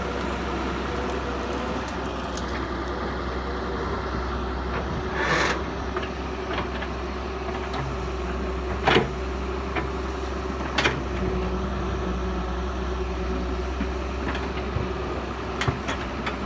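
Doosan excavator's diesel engine running steadily, with a few sharp clanks through it.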